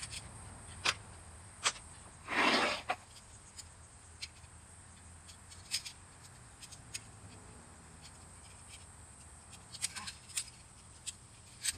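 Plastic snap mouse traps being handled, set and placed on asphalt: scattered sharp plastic clicks, with a brief scraping rustle about two and a half seconds in.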